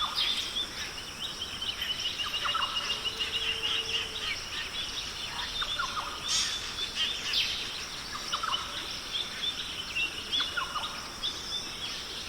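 Several birds chirping, with a long rapid trill in the first few seconds and short scattered calls throughout, over a steady high outdoor hiss.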